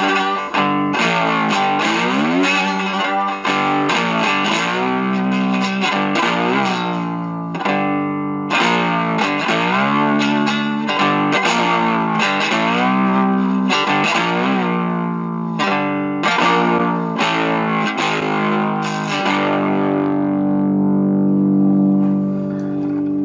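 Guitar instrumental music: quick picked runs with bent and sliding notes, ending on long held notes.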